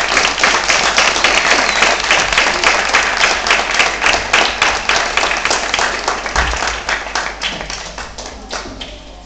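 Audience applauding: dense hand clapping that thins out and fades away over the last few seconds.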